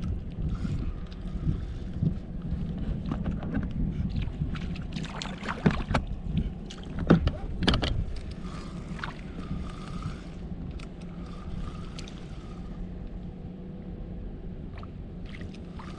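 Small waves lapping and slapping against the hull of an inflatable pontoon boat, with a few sharper knocks or splashes about five to eight seconds in.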